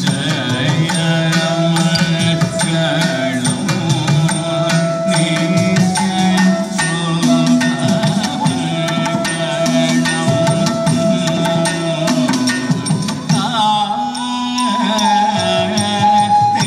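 Carnatic-style Mohiniyattam dance music: long, held melodic notes over a steady pattern of hand-drum strokes.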